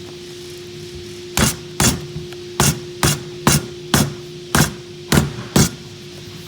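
Rubber mallet knocking a door-panel trim piece into place: nine sharp taps, about two a second, starting about one and a half seconds in.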